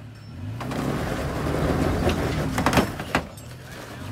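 Toyota Tacoma's engine working hard as its tyres spin in loose dirt and rock, spraying gravel, the noise building over the first two seconds. A few sharp knocks around three seconds in, from rock against the truck or tyres.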